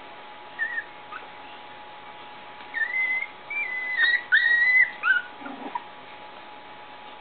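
Four-week-old Cavalier-cross puppies whining and squealing in short high-pitched cries: a couple of brief ones about a second in, then a string of louder squeals about three to five seconds in.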